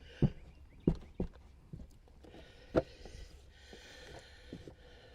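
Scattered light knocks and thuds with soft rustling as a car's molded carpet is handled and pushed into place, the loudest knock a little under three seconds in.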